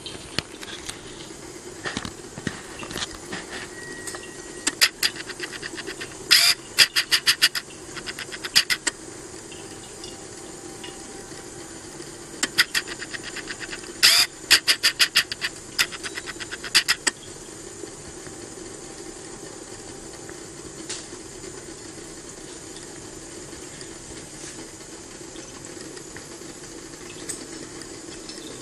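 Home copper bubble-cap column still running: a steady hiss and hum, broken twice by runs of rapid sharp clicking, about five to nine seconds in and again about twelve to seventeen seconds in.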